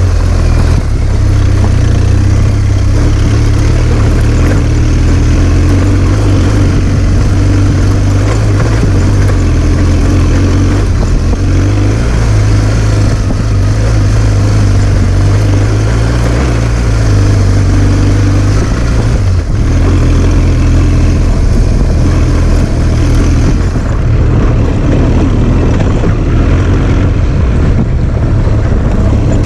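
Adventure motorcycle engine running under way on a rough dirt climb, with a low, steady drone that shifts slightly as the throttle changes. Heavy wind and road noise hiss over it.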